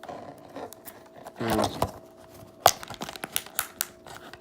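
Plastic wrapping being torn and crinkled off a DVD case: a run of small crackles and clicks, with one sharp snap a little past halfway.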